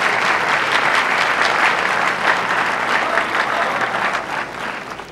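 Large audience applauding, many hands clapping together, dying away near the end.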